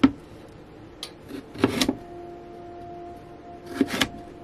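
Chef's knife slicing through a large beet and knocking down onto a bamboo cutting board, a few separate cuts. A steady hum comes in about two seconds in.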